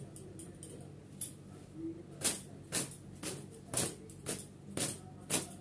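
Cotton gamcha towel swishing and slapping against long wet hair in regular strokes, about two a second, beginning about two seconds in after a few lighter flicks.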